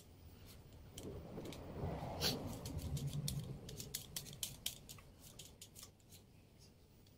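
Hand-held vegetable peeler scraping strips off a cucumber: a quick, irregular series of light scraping clicks. A low muffled rumble joins in for a couple of seconds about a second in.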